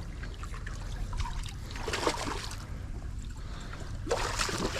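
Sea water sloshing and trickling against the breakwater, over a steady low rumble.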